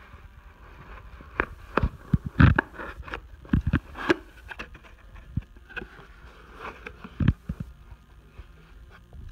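Cardboard box and packaging being handled and opened by hand: irregular taps, knocks and scrapes. They are thickest in the first half, with the loudest knock a couple of seconds in, and sparser after that.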